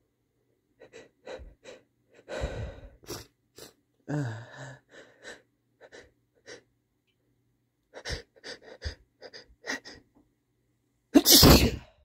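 A man's sneeze build-up: short sniffing, gasping breaths, some voiced, coming in irregular bursts. Then one loud sneeze, the loudest sound, about a second before the end.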